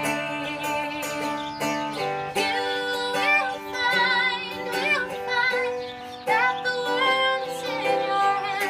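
Music: a woman's voice singing sustained notes with vibrato over a plucked-string accompaniment.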